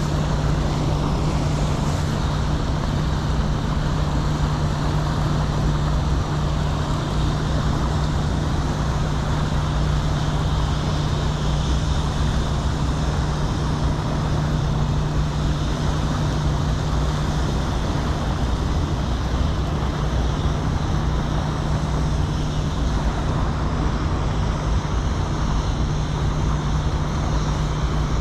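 Steady rush of turbulent river water, with a constant low hum running under it.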